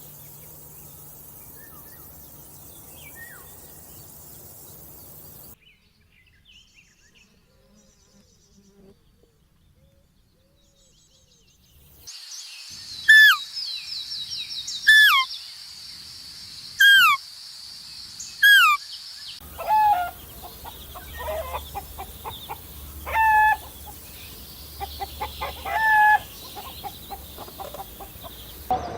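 Birds calling: loud, short calls that slide downward in pitch, repeated every second or two over a steady high buzz, followed by a run of shorter calls.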